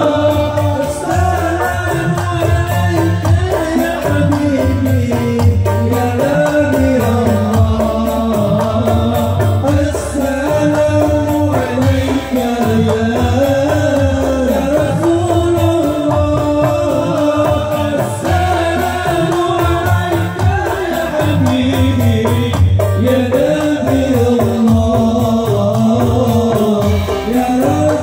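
Marawis group singing sholawat: male voices carry a devotional melody over steady hand drumming on frame drums and a marawis drum, amplified through a PA sound system.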